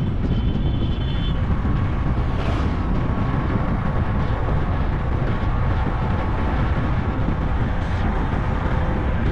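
A vehicle travelling along a road: a steady, dense rumble of engine and road noise, heaviest in the low end, with faint steady tones running through it.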